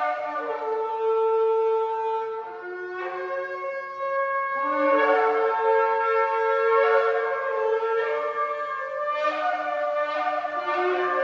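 Several shofars blowing long, overlapping blasts at different pitches, each note held for a second or more before shifting to another pitch.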